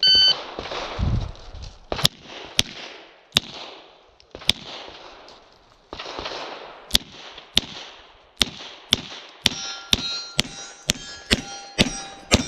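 Shot timer's start beep, then a semi-automatic pistol firing about fifteen shots at an uneven pace. In the second half, steel targets ring after many of the hits.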